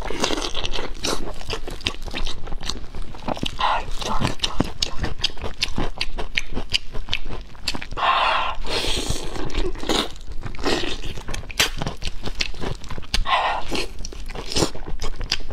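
Close-miked eating of braised pig's tail: biting, tearing and chewing the meat, with many quick wet mouth clicks and smacks.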